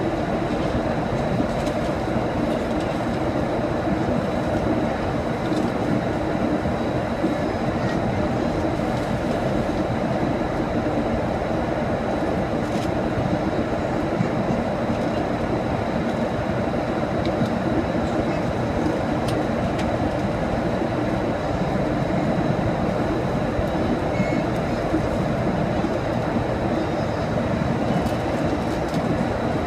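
Steady rumble and rush of an airliner cabin in flight, from the jet engines and airflow, heard inside the cabin. A faint high whine runs through it.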